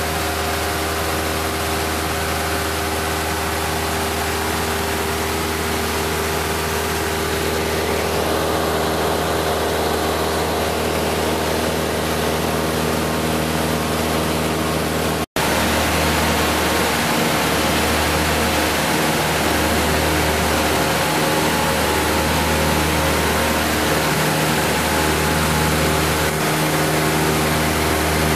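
Cabin drone of a Cessna 172 Skyhawk II's four-cylinder piston engine and propeller in steady cruise-power flight, with wind noise on the airframe. The sound cuts out for an instant about halfway through, and after that the low hum pulses slowly.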